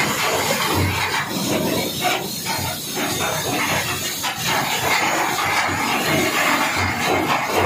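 Steady loud hiss of background noise, even throughout with no distinct strikes or tones.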